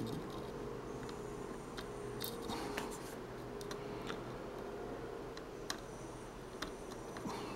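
Small clicks and scrapes of a soldering iron tip and fingers working the pins of a board-mounted connector on a circuit board, over a faint steady hum.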